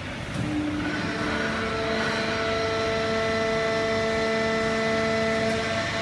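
Fully automatic horizontal hydraulic waste-paper baler running: a steady machine drone with several held whining tones that come in about half a second in.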